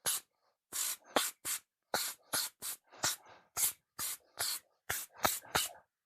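Can of compressed air duster fired in a rapid series of short hissing blasts, about two or three a second, blowing dust off a graphics card.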